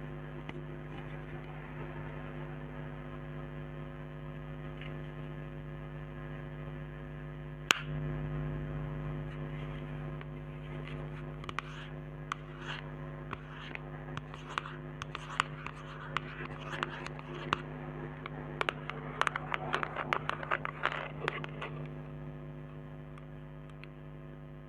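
Fingernails tapping and clicking on cosmetic containers, through an old microphone with a steady electrical hum underneath. One sharp click about eight seconds in, then a run of taps from about eleven seconds that is busiest near twenty seconds and stops a couple of seconds later.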